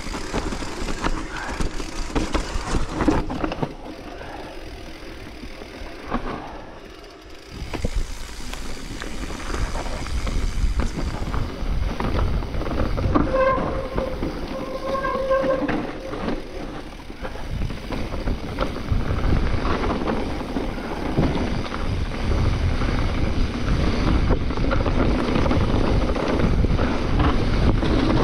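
Mountain bike riding down a rough forest trail: wind buffeting the helmet or handlebar microphone and the bike rattling and knocking over the ground, with a few short pitched notes near the middle.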